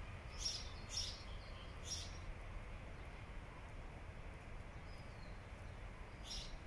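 A small songbird on an overhead wire singing: three short, high notes about half a second apart near the start, then another run of them near the end. Under it runs a low, steady background rumble.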